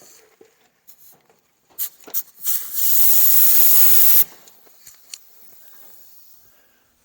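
A couple of short clicks, then compressed air hissing loudly for about two seconds before cutting off sharply. The air line to an air-powered buffing tool is now pressurised.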